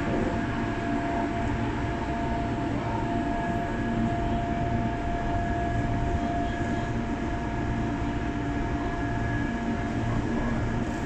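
London Underground District line train running between stations: a steady rumble with an even, steady whine over it.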